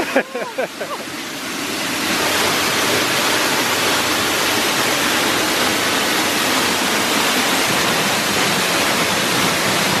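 Henrhyd Falls' 90-foot cascade plunging into its pool, heard from the cave behind the falling water: a loud, steady rush that swells over the first two seconds and then holds. A voice is heard briefly at the very start.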